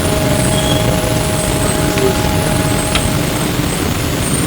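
Interior noise of an E902 Flyer electric trolleybus in motion: a steady rumble and hiss, with a steady whine that stops about three seconds in and a couple of light clicks.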